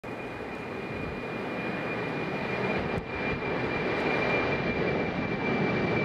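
Large jet airliner climbing out after takeoff: a steady jet-engine roar with a thin high whine held throughout, slowly growing louder.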